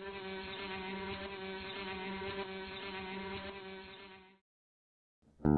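A bee buzzing steadily for about four seconds, then cutting off abruptly. Just before the end, louder plucked guitar and bass music starts.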